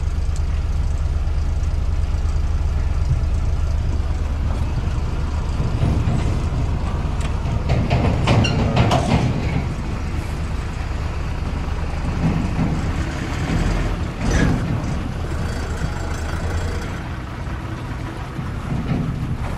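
Truck's diesel engine running at low speed while the truck manoeuvres, a steady low hum, with two louder noisy bursts about eight and fourteen seconds in.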